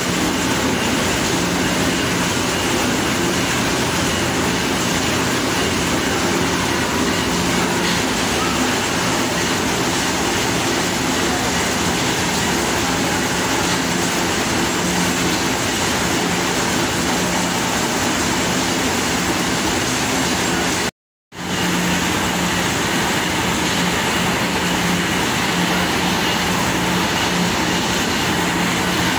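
Corn mill machinery running: a loud, steady mechanical drone with a steady low hum underneath. It breaks off completely for a moment about two-thirds of the way through.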